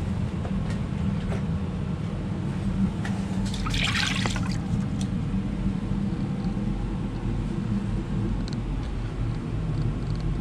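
Water draining from a lapidary cabbing machine's pan down a clear plastic drain hose into a plastic bucket, with a louder rush of water about four seconds in, over a steady low hum.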